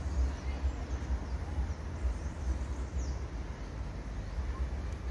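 Wind buffeting the microphone in a low, uneven rumble, with a few faint high bird chirps over it, one a quick falling whistle about three seconds in.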